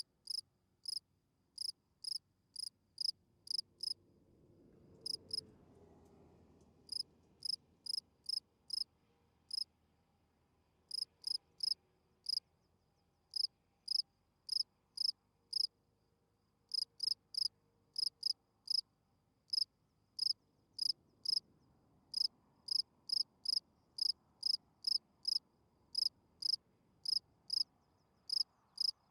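Field cricket's calling song: short, high chirps two or three a second, broken now and then by pauses of a second or more.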